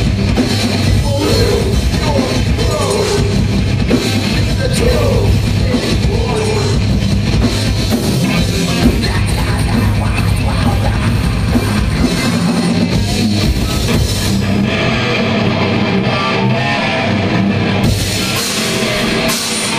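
Live metalcore band playing loud, with distorted electric guitars and a pounding drum kit. The low end thins out for a few seconds past the middle, then the full band comes back in near the end.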